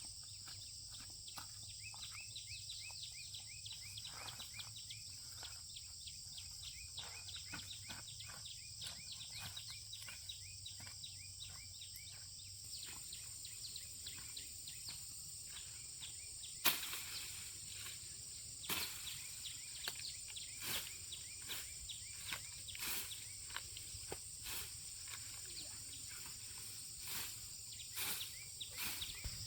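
Crickets and other insects chirring steadily at a high pitch. A little past halfway, a series of irregular sharp knocks or taps starts, about one every second or so.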